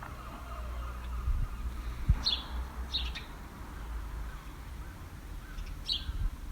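Wild birds chirping, with short, high single chirps about two seconds in, about three seconds in and again near the end, over a faint low rumble.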